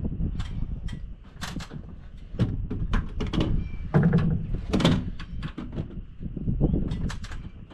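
Cordless nail gun firing into framing lumber: a series of sharp shots and knocks, the loudest in the middle, with wind buffeting the microphone.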